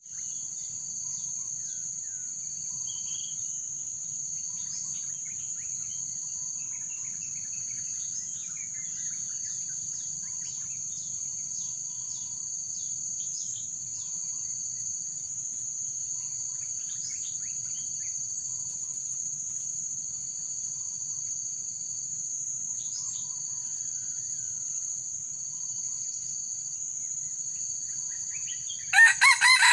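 Forest insects make a steady high-pitched drone, with a second insect trilling on and off beneath it and faint bird chirps scattered through. Near the end a rooster crows loudly.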